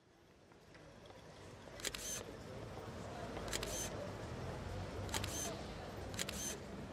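Four camera shutter clicks, each a quick double click, spaced a second or so apart over a street-ambience bed of distant voices that fades in from silence.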